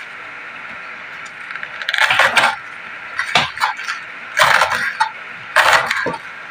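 Kitchen knife chopping pechay (bok choy) stalks on a bamboo cutting board: four short runs of crisp chops, starting about two seconds in and coming a little over a second apart.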